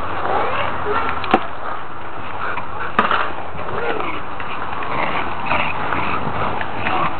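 Welsh Corgis playing together: scuffling and clattering over a steady background din, with two sharp knocks about a second and a half and three seconds in.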